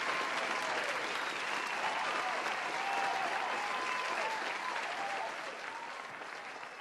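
Audience applauding at the close of a keynote talk, dying away near the end.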